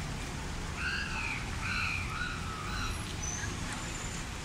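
Steady low rumble of traffic and street noise, with a bird giving four short, wavy calls between about one and three seconds in, followed by a couple of faint high chirps.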